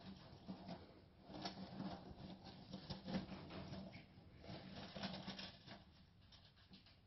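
Faint, irregular rustling and crinkling of shredded paper bedding as pet rats move and scratch about in their cage, over a low hum.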